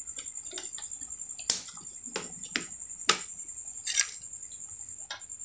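A pot of thick coconut-milk vegetable stew (sayur lodeh) coming to the boil, bubbles bursting in irregular wet pops and clicks, a few of them louder.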